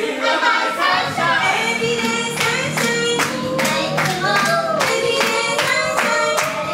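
Idol pop song: young women's voices singing over a backing track played from a CD deck, with a steady beat that comes in about two seconds in.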